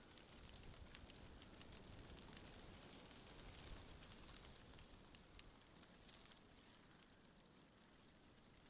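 Faint ambient wind hiss with scattered soft crackling ticks.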